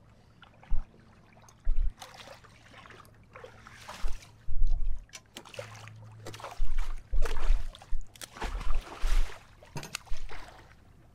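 Sea water splashing and sloshing against the side of a small boat as a hooked fish is lifted out, unhooked and let go back into the water. Irregular splashes come in several bursts, mixed with low thumps.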